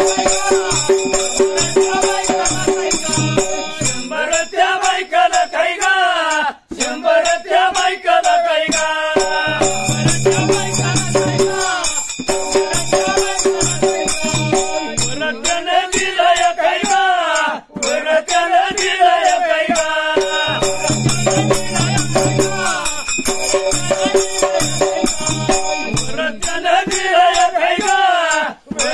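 Dhangari ovi folk song sung by a group of men in long rising-and-falling phrases, over a dhol drum and hand cymbals keeping a steady jangling beat.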